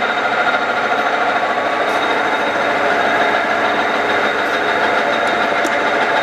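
Geminis GE-650 geared-head engine lathe running under power, its spindle and headstock gearing turning with a steady whine of several even tones.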